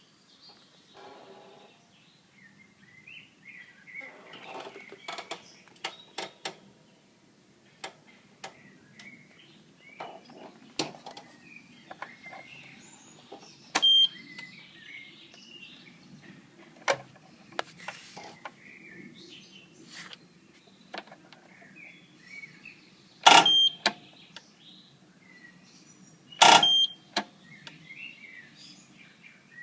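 Lawn mower that fails to start: sharp clicks, three of them louder and each with a short high beep, but no engine cranking or running. The symptom fits a weak or drained starting battery. Birds chirp in the background.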